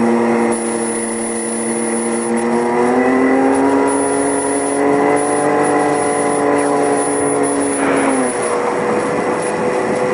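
Race vehicle's engine running at steady revs, heard from inside the roll-caged cab, its pitch lifting slightly a few seconds in and falling away briefly near the end.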